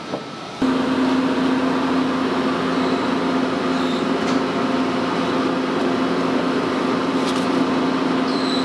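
Steady hum of factory machinery: a loud, even drone with a low steady tone that starts abruptly about half a second in, most likely a shot change. A few faint clicks sound over it as silicone blanks are set onto the metal mold cores.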